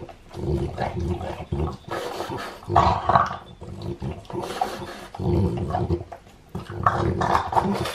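A French bulldog grunting and snuffling in about five short bursts with its nose pressed into a rubber treat ball, working to get the treats out.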